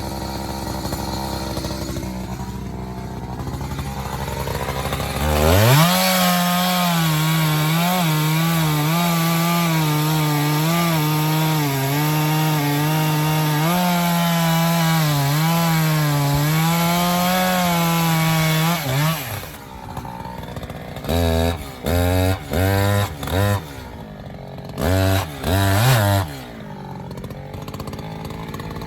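Gas chainsaw with a full-chisel low-kickback chain idling, then held at full throttle for about 13 seconds, its pitch wavering as it cuts through wood, then dropping back to idle with a series of short throttle blips near the end.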